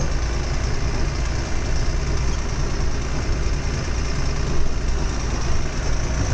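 Heavy truck's diesel engine running at low speed, heard from inside the cab as a steady low rumble.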